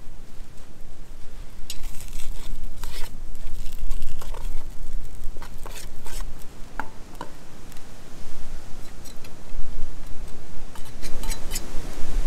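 Gusty wind rumbling on the microphone, with scattered, irregular light clicks and knocks.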